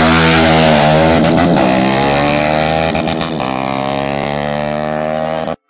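KTM 390 single-cylinder motorcycle engine held at high revs, its pitch dipping briefly a few times, cut off abruptly near the end.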